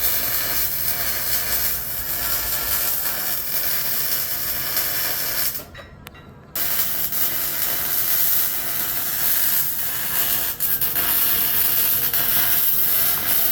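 Welding arc crackling and hissing steadily while a cross member is welded onto a truck frame. The arc stops for about a second about five and a half seconds in, then strikes again and carries on.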